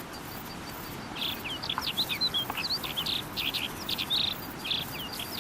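Small birds chirping in quick, short rising and falling notes, starting about a second in, over a faint steady high-pitched hum of insects and outdoor ambience.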